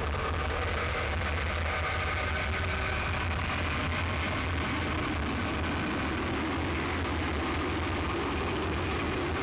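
Harsh noise track from a cassette: a steady, unchanging wall of noise over a constant low hum.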